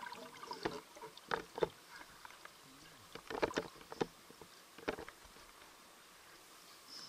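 Muffled underwater sound picked up by a submerged camera: a faint hiss of water with scattered short clicks and knocks, a few in quick pairs, quieter in the last couple of seconds.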